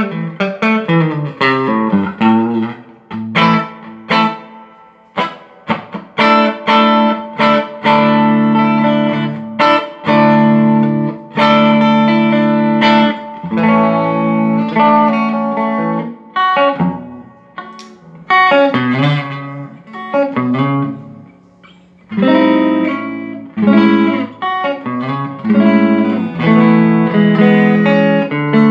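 Electric guitar played through a Mesa Boogie Studio .22+ amplifier, a mix of picked single notes and chords left to ring, with brief pauses between phrases. The amp is being tested after a repair for sound that cut in and out at random.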